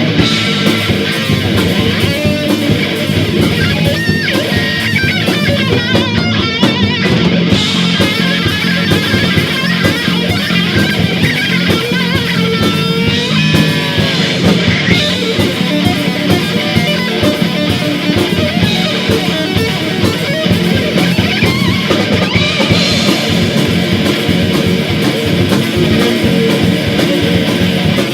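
Heavy metal band playing an instrumental passage, led by distorted electric guitars, with a lead guitar line bending in pitch.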